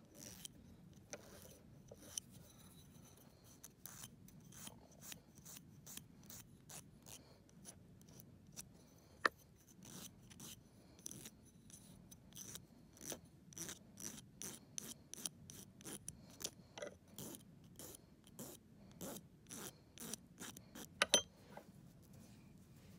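Glass nail file rasping against a dog's claw in short, faint strokes, about two a second, with a few sharper clicks; the strokes stop about a second before the end.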